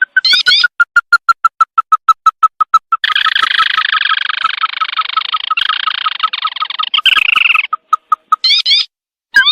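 Recorded bird lure call of the sintar mata merah (lantung) played back: a fast run of short clipped notes, about five a second, that turns about three seconds in into a dense chattering trill lasting some four seconds, then a few more clipped notes and a pair of rising whistled notes near the end.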